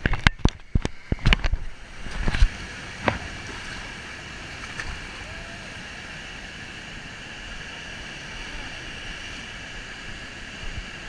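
Steady rush of a waterfall, with a quick run of sharp knocks and splashes in the first three seconds.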